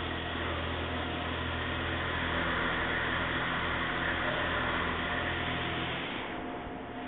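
A CNC milling machine cutting a workpiece under flood coolant: a steady hiss of coolant spray and cutting noise over the machine's hum and a steady tone. It grows louder through the middle and eases off about six seconds in.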